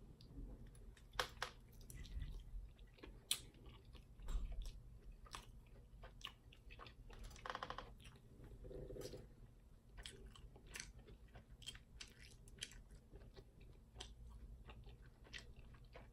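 Close-miked chewing and biting on a vegan sausage, with faint wet mouth clicks scattered throughout.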